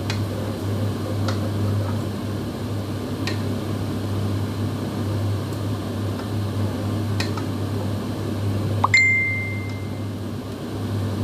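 Steady low hum of kitchen equipment with a few light clicks of a utensil at the pot, and one short high beep about nine seconds in.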